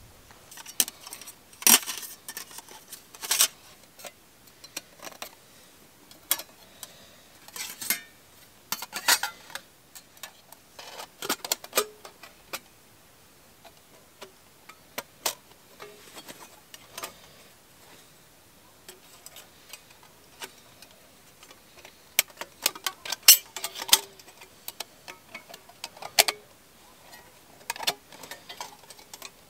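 Thin steel panels of a Savotta flat-pack wood-burning stove clicking and clinking as they are slotted together by hand: sharp, irregular metallic ticks in clusters, with a quieter stretch in the middle.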